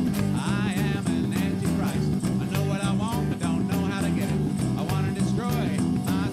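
Live blues-rock band music: electric guitar playing over bass and a steady drum beat.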